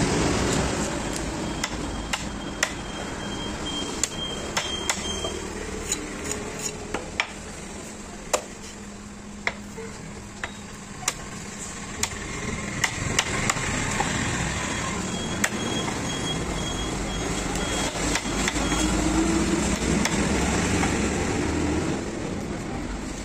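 Large knife chopping fish on a wooden log chopping block: sharp knocks at an irregular pace, roughly one a second, over a steady rumble of traffic.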